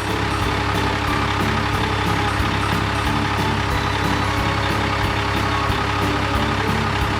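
Cartoon truck engine sound effect running steadily, with background music that has a simple melody and a steady beat.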